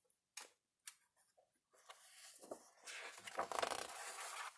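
Pages of a picture book being turned by hand: a couple of faint taps, then paper rustling and sliding for about two and a half seconds, loudest near the end.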